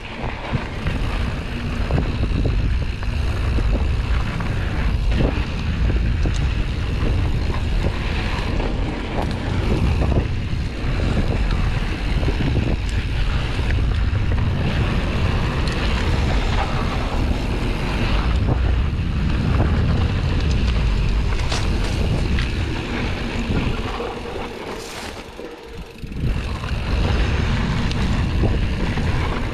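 Rumble and rattle of a Canyon Strive enduro mountain bike running fast downhill on a dry dirt trail: tyre noise over dirt and stones with scattered clicks and knocks from the bike, mixed with wind buffeting the camera microphone. It goes quieter for a second or two near the end, then picks up again.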